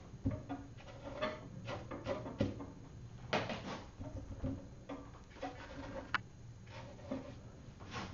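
A paintbrush dabbing and rubbing on watercolour paper in short, irregular strokes, with a few small sharp clicks among them.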